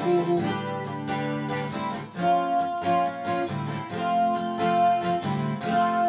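Gibson acoustic guitar with a capo, strummed and picked with a flatpick, playing a chord accompaniment with no singing.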